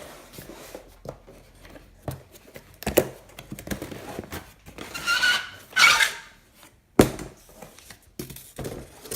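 Cardboard box being opened by hand: packaging rustling and scraping, with a run of sharp knocks and clicks. About five seconds in comes a longer squeaky scrape, and the sharpest knock lands about seven seconds in.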